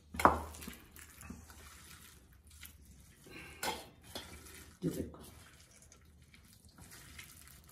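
Boiled potatoes being mashed by hand with spices in a stainless-steel bowl: soft handling noise broken by a few sharp metal clinks of the bowl, the loudest just after the start and two more around the middle.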